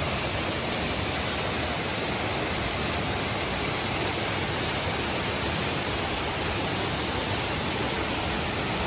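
Waterfalls in heavy flow, falling water rushing in a steady, unbroken wash of noise.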